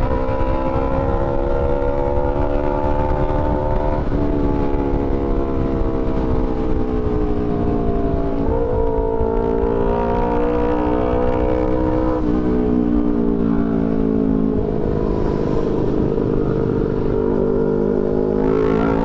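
Motorcycle engine running while riding in traffic, its pitch slowly sinking and rising with a few sudden jumps as the throttle and speed change, over a steady rush of wind and road noise.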